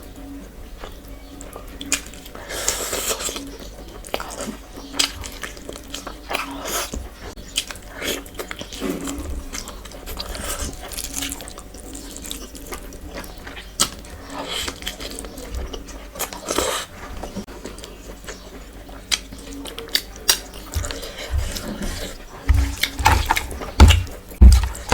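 Close-miked eating sounds: wet chewing and smacking of rice and curry, with scattered clicks. A run of heavy low thumps comes near the end.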